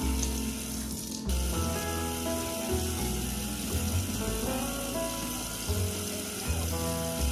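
Background music with held notes and a bass line over a steady hiss of rain; everything cuts out briefly about a second in.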